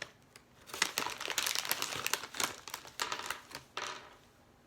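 Resealable plastic candy bag crinkling as it is handled and rummaged through, a dense run of rustling that begins just under a second in and thins out near the end.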